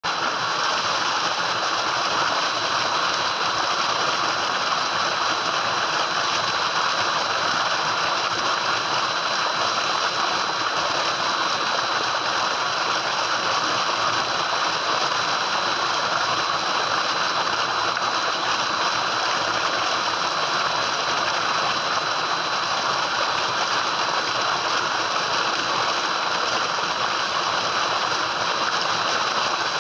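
Tubewell outlet pipe pouring a heavy stream of pumped groundwater into a concrete tank: a steady, unbroken gushing and splashing.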